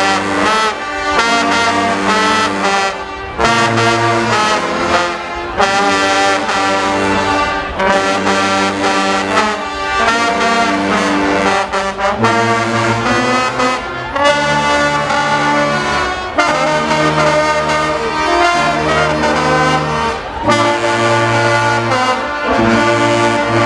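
Guggenmusik carnival band playing loud brass music: trombones, trumpets and sousaphones in rhythmic blasts over drums and cymbals.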